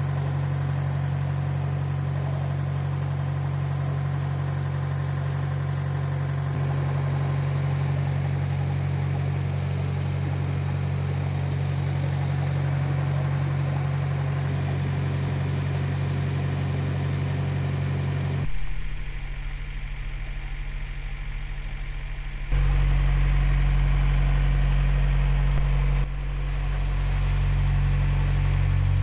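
Narrowboat's diesel engine running steadily at cruising speed, a low even chug. The engine sound shifts abruptly in level and tone a few times in the second half.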